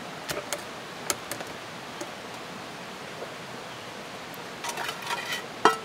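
Metal cooking pot and lid clattering over a campfire: a few sharp pops in the first two seconds, then a clatter about four and a half seconds in that ends in a loud, ringing metallic clink, over a steady hiss.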